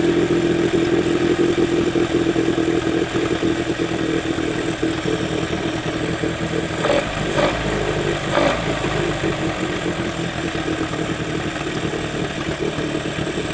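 A 1995 Mercury 9.9 hp two-stroke, two-cylinder outboard motor running steadily on its new ignition coils, with a few light clicks about halfway through.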